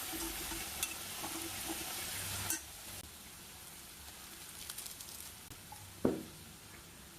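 Food sizzling in a frying pan while being stirred, with small utensil clicks; the sizzle cuts off suddenly about two and a half seconds in, leaving a faint hiss, and a single sharp clink of a utensil comes near the end.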